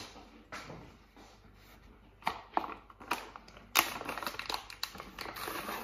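Crinkling and crackling of a clear plastic packet of beetroot being handled and pulled open, the crackles sparse at first and growing dense and louder from about two seconds in.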